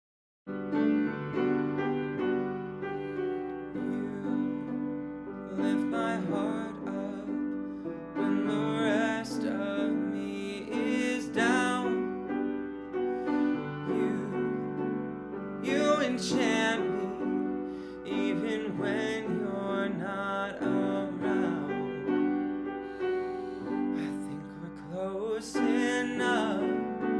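Piano playing a slow intro of chords and melody, starting about half a second in.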